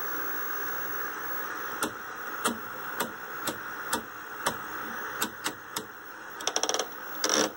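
Static hiss from the 1979 General Electric color TV's speaker, with the rotary channel selector clicking through its detents about twice a second from about two seconds in, and a quick run of clicks near the end. No station comes through, only static: the set's tuner/RF section is receiving nothing.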